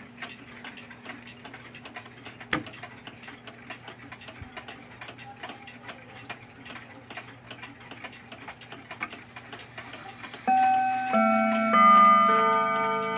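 Howard Miller 612-439 mantel clock ticking steadily, with one sharp click about two and a half seconds in. About ten and a half seconds in, the clock starts its quarter-hour chime: four notes about half a second apart, which ring on and overlap.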